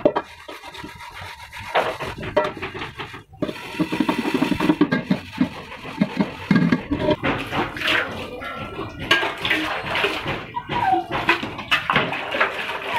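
Pots being washed by hand: an aluminium pot rubbed and scrubbed, with irregular knocks and clinks of metal, then water sloshing and splashing in a steel basin as pots are rinsed near the end.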